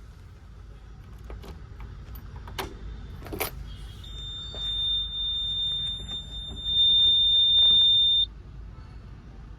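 Heavy diesel machinery running with a low, steady rumble, with a couple of knocks early on. About four seconds in, a continuous high-pitched alarm-like tone starts; it gets louder about a second and a half before it cuts off suddenly, a little after eight seconds.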